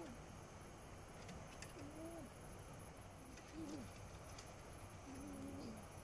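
An animal's faint, low calls, short and slightly rising and falling, repeated about every one and a half to two seconds over a steady low hiss.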